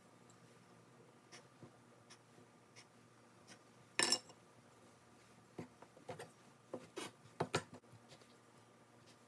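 Faint kitchen handling sounds of shapes being cut from a thin omelette with a heart-shaped cookie cutter: small scattered clicks, a brief louder scrape about four seconds in, then a run of quick taps.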